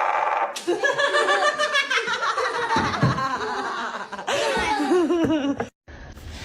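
A person laughing in quick rising and falling bursts for about five seconds, cut off suddenly near the end.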